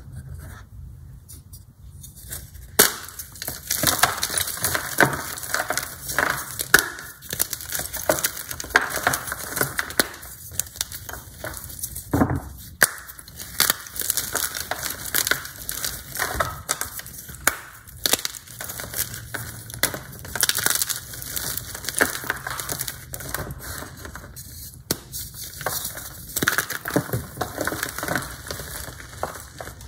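Hard blocks of Z-Athletic gym chalk crushed and squeezed by bare hands: dense crunching and crackling as the chalk breaks into chunks and powder, starting in earnest about three seconds in.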